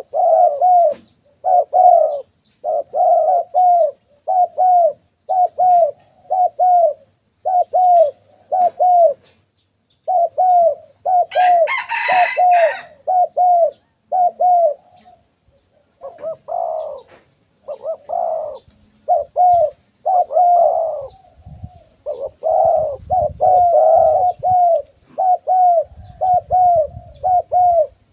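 Spotted doves cooing: runs of short, low notes, about two to three a second, broken by brief pauses. About twelve seconds in there is a short, louder, higher and noisier sound over the cooing.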